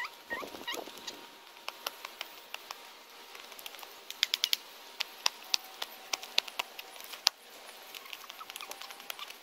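A child's sneakered footsteps and hops on a concrete sidewalk: irregular sharp taps and scuffs, with a quick run of steps about four seconds in and scattered single taps after.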